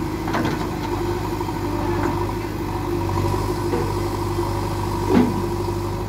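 JCB 3DX backhoe loader's diesel engine running steadily while the backhoe arm moves the loaded bucket, with a single sharp knock about five seconds in.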